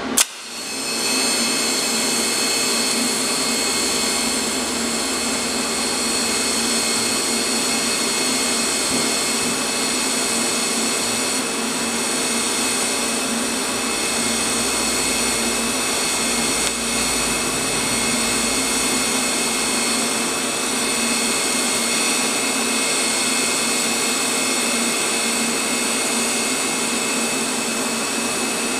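TIG welding arc on steel plate, struck just under a second in, then burning with a steady hiss and a thin high whine.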